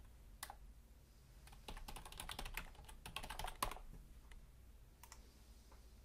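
Typing on a computer keyboard: a quick run of keystrokes with one louder key near the middle, then a few scattered clicks near the end.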